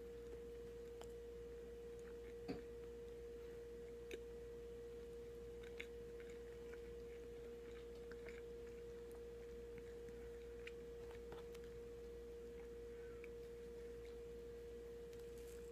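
Quiet chewing of a soft-bread sandwich, with faint scattered mouth clicks and one sharper click about two and a half seconds in. A steady single-tone hum runs underneath.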